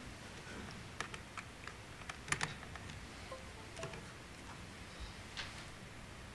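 Faint, irregular clicks and light taps, with the loudest cluster a little over two seconds in: small handling noises during a pause in speech.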